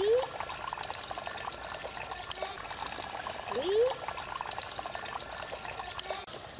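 Water splashing and dripping as a cast net is hauled in by hand through a pond, a busy patter of small splashes. A short rising tone sounds twice, at the start and about three and a half seconds later.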